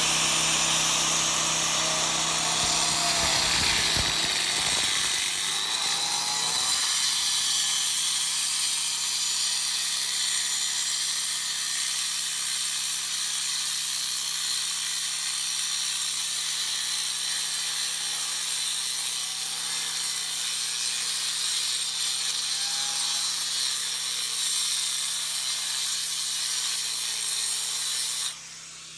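Electric power tool running steadily as it cuts underneath glass pool tile to remove it, with a high, hissing grind and a steady hum. It cuts off suddenly near the end.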